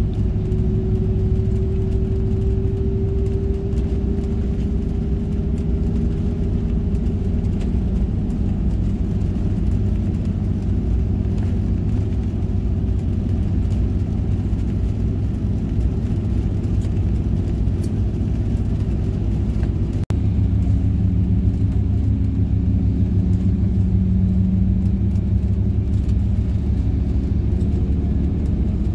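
Intercity bus's engine and tyres droning steadily, heard from inside the cabin, with a brief break in the sound about two-thirds of the way through.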